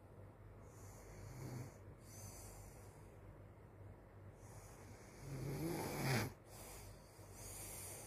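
A sleeping child snoring: a short, soft snore about a second and a half in, then a longer, louder snore past the middle that stops abruptly.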